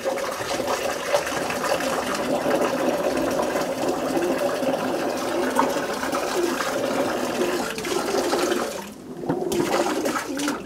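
Water spraying from a shower hose into a pigeons' bathing tub, setting the water in motion to coax the pigeons to bathe. It is a steady rush that drops away briefly near the end and then picks up again.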